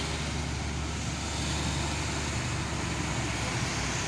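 Fuel tanker truck's diesel engine running steadily under load as the truck pulls slowly up and around a steep hairpin bend.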